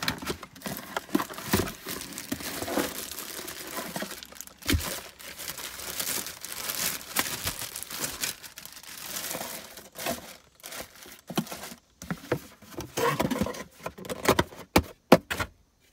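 Plastic bag crinkling and cardboard box packaging rustling as a plastic in-line blower fan is unpacked by hand, with scattered short knocks and clicks from handling.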